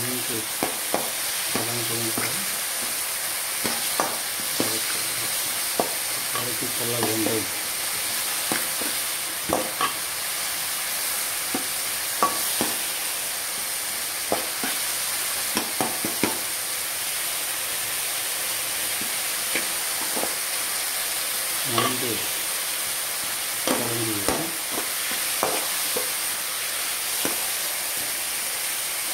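Shallots, tomato, garlic and curry leaves sizzling in oil in a metal pot while being sautéed, with a spatula scraping and clicking against the pot as they are stirred.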